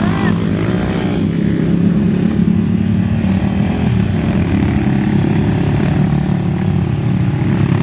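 Single-cylinder trail motorcycle engine running at a steady, fairly constant speed.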